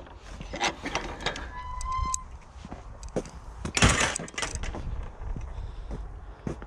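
Irregular footsteps and scuffs while walking with a handheld camera, over a steady low rumble of distant traffic. A short, clear whistle-like tone sounds about two seconds in, and a louder scuff comes about four seconds in.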